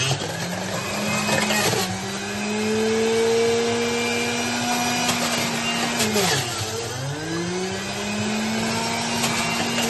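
Electric juicer motor running with a steady hum, its pitch sagging and climbing back as it is loaded by carrot pieces pushed down the feed chute: a brief dip about two seconds in and a deeper, slower one a little past the middle.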